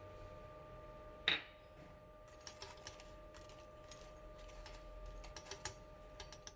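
A sharp metallic clank about a second in, followed by a run of light, irregular clicks and clinks of metal kitchenware, over a steady faint hum.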